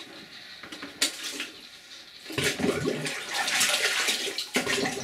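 Water poured from a plastic pitcher into a plastic storage tote already part-full of water, splashing onto the surface. The splashing starts about two and a half seconds in, after a single sharp click.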